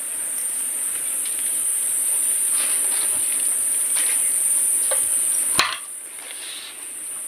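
A few light knocks and clicks of a hand-lever papad press being opened and pressed, over a steady high hiss that cuts off suddenly about five and a half seconds in.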